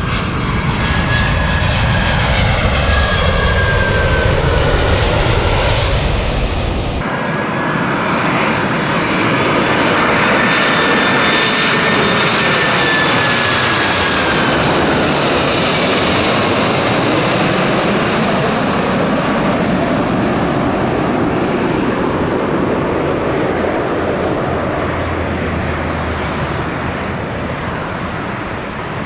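Jet airliner's turbofan engines passing low overhead: a loud, steady rush with whining tones that slide in pitch as the aircraft goes by. There is an abrupt change in the sound about seven seconds in, and the noise slowly fades near the end.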